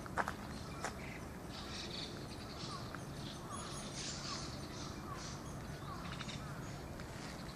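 Birds chirping and calling in the surrounding trees: many short high chirps and a small falling note repeated about every half second, over a steady low outdoor background. Two sharp clicks sound in the first second.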